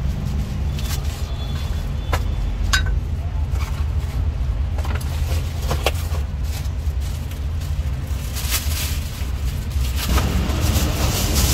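Steady low rumble of passing street traffic, with scattered sharp knocks and clicks from a cleaver on a wooden chopping board and from food containers being handled. Near the end a plastic bag rustles.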